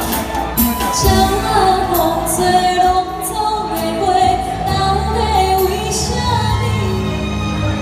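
Female vocalist singing into a microphone over violin and electronic keyboard, a live three-piece band playing through the hall's PA.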